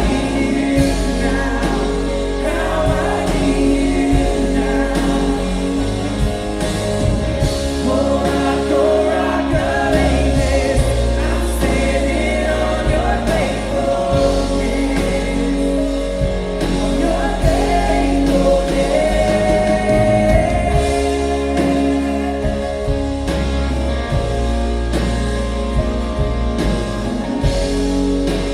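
Live worship band playing with several voices singing together over drums, bass, guitars and keys, picked up by a recorder in the room.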